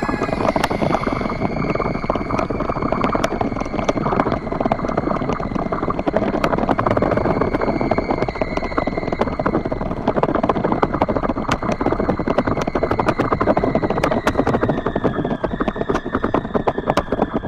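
Kiteboard planing at high speed over choppy water: a dense rattling rush of the board chattering across the chop, with a steady high whistle that slides slowly lower near the end as the speed falls.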